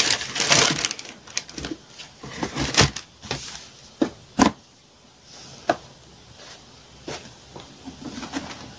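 Handling sounds of sneakers and cardboard shoe boxes being put away and picked up: a rustle of paper and cardboard, then several separate sharp knocks, the loudest about four and a half seconds in.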